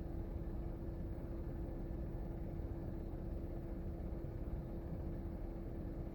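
Steady mechanical hum: one constant tone over a low rumble, unchanging throughout.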